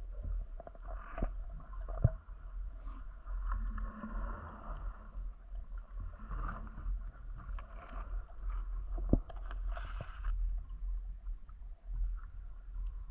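Water sloshing and gurgling around a swimming diver, with a steady low rumble and a few sharp clicks, the loudest about two and nine seconds in.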